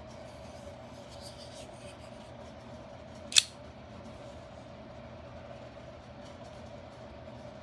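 Small folding knife's blade snapping into place with one sharp click about three and a half seconds in, after a few faint handling ticks, over a steady low hum.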